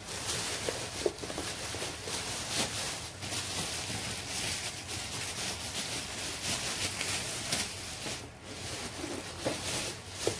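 Clear plastic packaging crinkling and rustling without a break as it is handled and pulled off a comb binding machine being unboxed.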